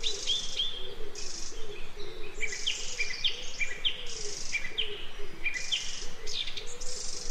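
Birdsong in a forest ambience: one bird repeats short, quick chirps over and over, mixed with higher, hissing trill-like calls about once a second.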